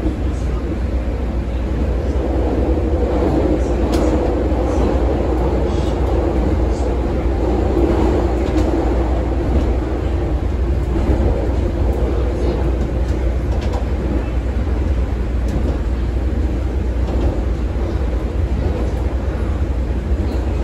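CTA 5000-series rapid-transit railcar running along the track, heard from inside the car: a steady, loud rumble of wheels and motors, with a few sharp clicks scattered through.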